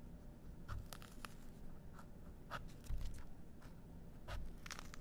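Kitchen knife tip cutting and scraping into the rind of a pomegranate around its blossom end, a scattered string of small scratchy scrapes and clicks with a few soft knocks.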